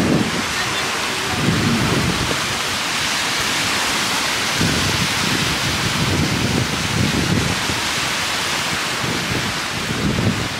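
Strong wind blowing across the microphone: uneven low rumbling buffets over a steady rush of wind.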